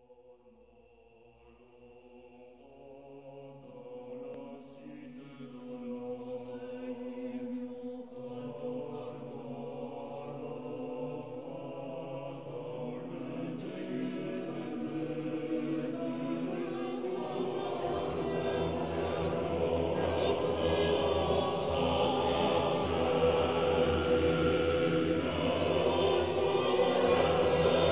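Background choral music: voices chanting long held notes, fading in slowly from near silence and growing steadily louder. A deeper low part comes in about two-thirds of the way through.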